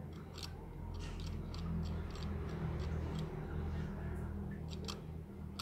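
Cutter blade scraping and picking at the solder pads of an LED bulb's circuit board, a run of irregular small scratches and clicks over a low steady hum. The pads are being scraped so the metal joins across a broken connection in the dead bulb.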